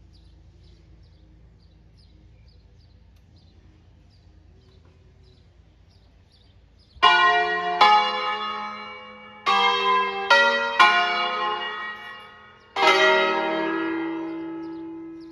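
Swinging church bells from a five-bell set in E-flat (Crespi, 1853), rung in a short solemn concert. A low hum dies away over the first seven seconds, then six strong clapper strokes come in uneven succession. The last stroke rings on and fades.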